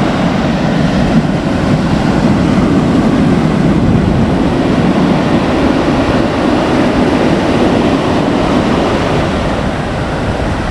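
Typhoon wind buffeting the microphone over breaking surf: a loud, steady rushing noise with no letup.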